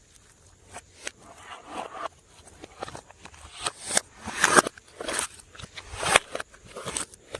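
Slime being squished and stretched by hand, with sticky crackles and pops; the pops come more often and louder from about halfway in.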